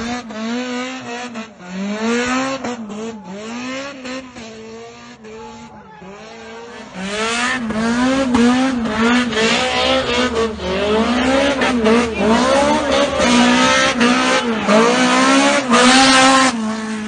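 Drift car spinning its rear tyres in a burnout: the engine revs up and drops back over and over while the tyres squeal, getting louder about seven seconds in.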